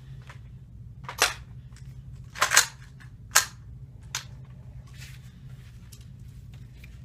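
Sharp clacks of a rifle and gear being handled: four of them over about three seconds, the second longer than the others and the last fainter, over a low steady hum.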